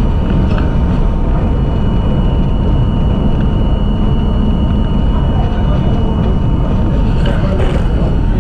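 R42 subway train running along elevated track: a loud, steady rumble of wheels on rail, with a thin steady high whine over it. A brief extra rush of noise comes near the end.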